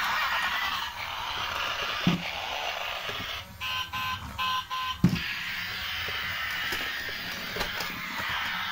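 Battery-powered transforming robot toy car whirring as its motor drives it from robot form back into a car. There are two thumps, about 2 and 5 seconds in, and a short string of electronic beeps around the middle.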